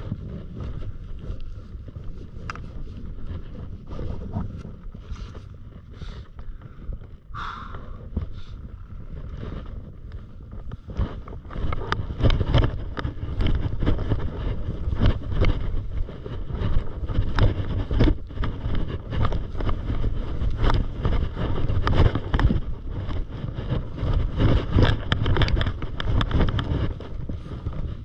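Skis scraping and sliding over packed, lumpy snow, with wind buffeting the microphone as a low rumble. Quieter with scattered scrapes at first, then louder and continuous after about eleven seconds as the run gets under way.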